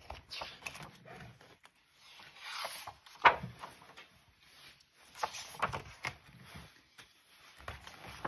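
Pages of a hardcover picture book turned by hand: paper rubbing and rustling, with a sharp tap about three seconds in.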